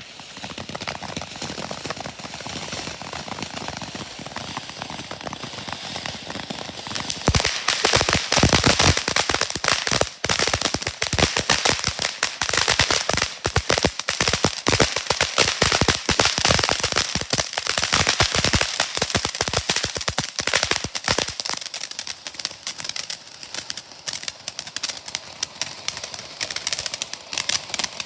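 Backyard consumer firework going off: a steady hiss for the first several seconds, then a dense run of rapid cracks and pops for about fourteen seconds, thinning to lighter crackling near the end.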